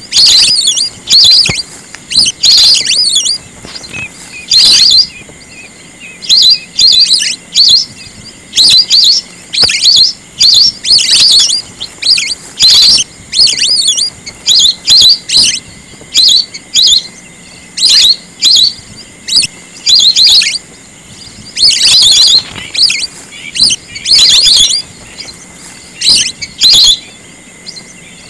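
Whistling ducks calling: loud, shrill whistled calls in quick bursts, one every second or so with brief gaps between.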